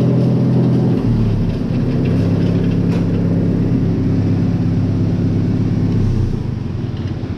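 Tractor engine running steadily. Its note shifts about a second in, then holds until near the end, when it winds down and fades as it is shut off.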